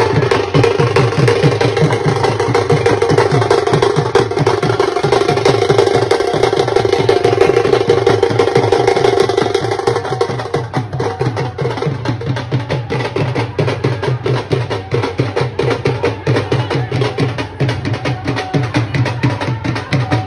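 Music of rapid, steady drumming, with a held tone over it that fades out about ten seconds in.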